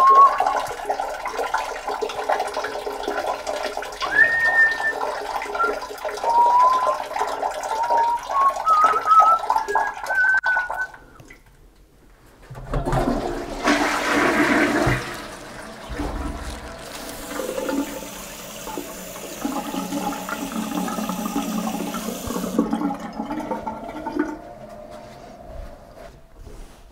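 A man whistling a tune over a stream of liquid splashing into a toilet bowl, which stops about eleven seconds in. After a short pause a toilet flushes: a loud rush of water, then a steady hiss of the cistern refilling that fades out a few seconds before the end.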